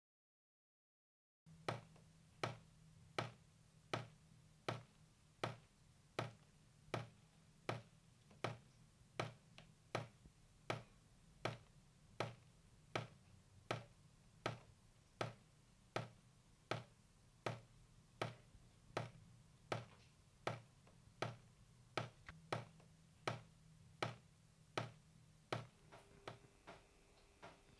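Steady ticking: a sharp click about every three-quarters of a second, each with a soft low thud under it. It begins after a second and a half of silence.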